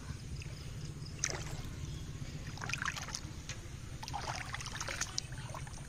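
Hands splashing and sloshing in shallow muddy water while groping for fish, in short bursts about a second in, around three seconds in, and again between four and five seconds in, over a steady low rumble.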